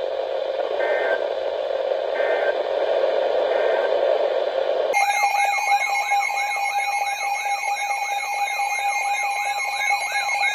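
Weather radio hiss with three short data bursts about a second apart, the EAS end-of-message code. About five seconds in, the receiver's alert alarm starts suddenly: a rapidly repeating warbling tone, two to three sweeps a second.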